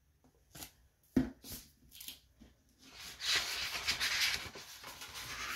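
A hardcover book being handled: a few soft taps, then a couple of seconds of paper rustling as pages are turned.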